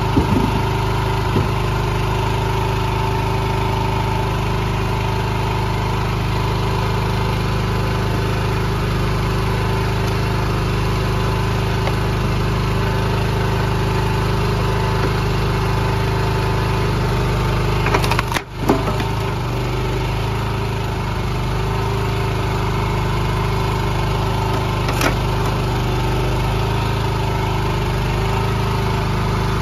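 Small gas engine of a trailer-mounted hydraulic log splitter running steadily, with a few brief knocks of wood being split and handled, the loudest about two-thirds of the way through.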